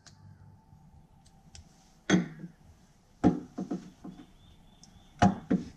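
Several knocks and clunks of things being handled and set down, spread over a few seconds, over a faint steady hum.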